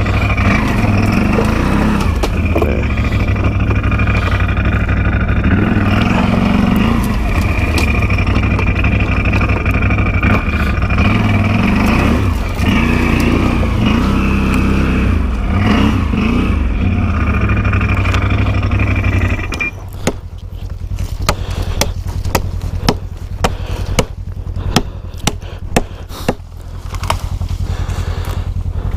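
ATV engine running and revving, its pitch rising and falling. About twenty seconds in it drops back, and a run of sharp knocks and snaps follows. Near the end the engine picks up again.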